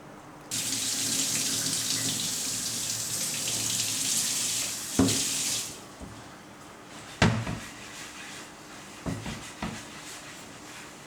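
Kitchen tap running into a sink for about five seconds, then turned off, followed by a few sharp knocks and clatters.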